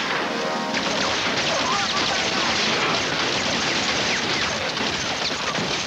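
Movie gunfight sound: rapid, dense gunfire from a submachine gun and handguns mixed with crashing impacts, setting in under a second in and running on continuously.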